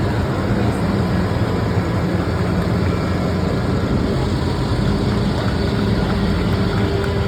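Steady low drone of heavy engines running, with a deep hum that holds its pitch and rises a little higher from about five seconds in.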